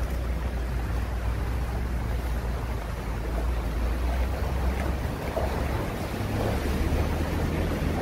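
Steady low rumble and rushing noise of a vehicle driving over a wet floor.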